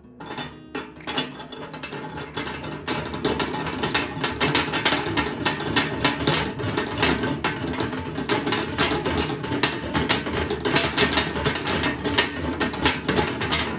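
Rapid, irregular mechanical clicking and rattling, as from a tool or mechanism at work on metal, starting just as the music stops.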